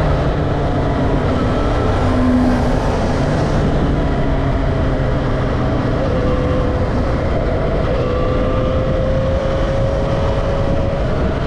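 Yamaha XJ6 inline-four motorcycle engine running at road speed, with wind rushing over the microphone. A steady engine tone rises slowly in the last few seconds.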